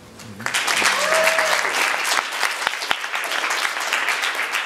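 Audience applauding, starting about half a second in and keeping up steadily.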